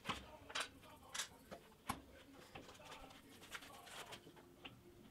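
Faint scattered clicks and light taps, a few each second, over quiet room tone.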